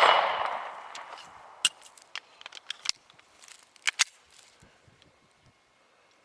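A 9mm Beretta Nano pistol shot dying away, its report ringing and echoing off over about a second and a half, followed by a handful of small sharp clicks.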